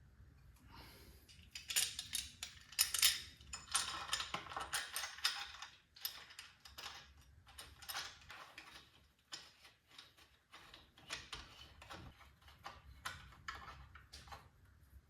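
Irregular clicks, clinks and short scrapes of hand-tool and parts handling during work on a motorcycle, busiest in the first half.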